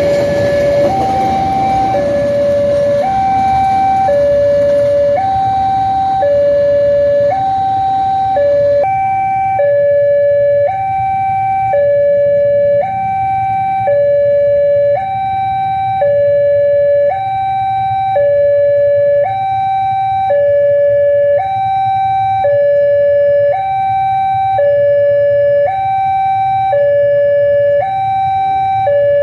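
Railway level-crossing warning alarm sounding its two-tone electronic siren, alternating between a high and a low note about once a second. The noise of a passing train dies away about nine seconds in, leaving the siren alone.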